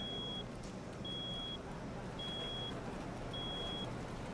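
Four evenly spaced, high-pitched electronic beeps, each about half a second long and a little over a second apart, over a steady low hum and background hiss.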